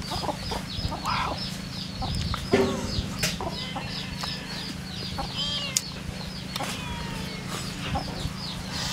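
Chickens clucking, with short calls scattered through, over a steady run of rapid high chirps.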